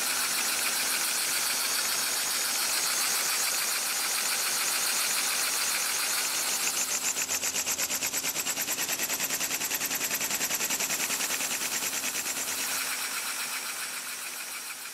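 Small single-acting, double-cylinder model steam engine running fast: a rapid, even chuffing of exhaust puffs over a steady hiss. The puffs become sharper about halfway through, then fade and slow near the end as the engine runs down.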